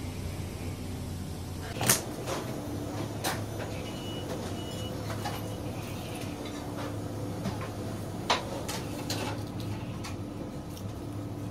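A whole gurnard slapped down onto a plastic cutting board about two seconds in, with a couple of lighter knocks later as the fish is handled. A steady low hum runs underneath, and three short high beeps sound around four to five seconds in.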